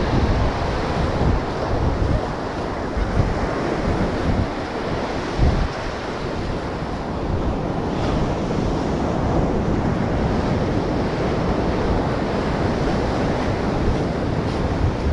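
Ocean surf breaking on a sandy beach, a steady wash of noise, with wind buffeting the microphone in uneven low gusts.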